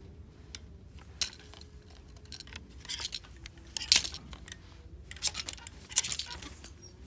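Clothes hangers clinking and clattering on a store rack as shirts are pushed along, mixed with handling noise from the phone. Scattered light clicks, with louder rattling bursts about three seconds in and again near six seconds.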